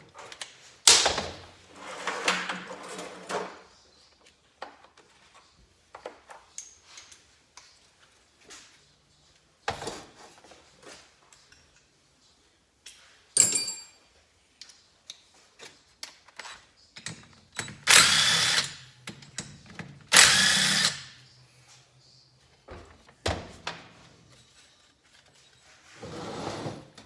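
Cordless power driver running in several short bursts as it backs 10 mm bolts out of a motorcycle cylinder head, with small knocks and clinks of bolts and tools between runs. The two loudest runs come close together in the second half.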